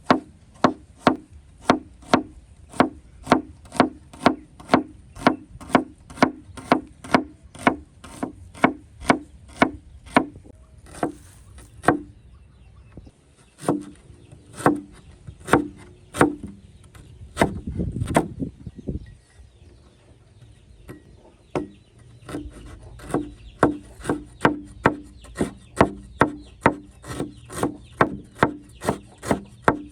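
Steady chopping with a knife on a wooden board, about two knocks a second, pausing briefly about twelve seconds in, with a short scraping rustle around eighteen seconds.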